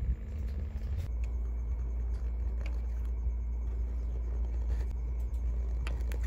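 A pen scratching lines across notepad paper, crossing out list items in a few faint strokes over a steady low rumble.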